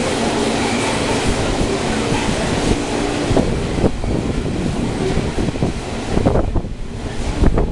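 Loaded coal wagons rolling past close below: a steady rumble of wheels on rail, with sharp clicks as wheels pass over rail joints, more of them in the second half. Wind buffets the microphone throughout.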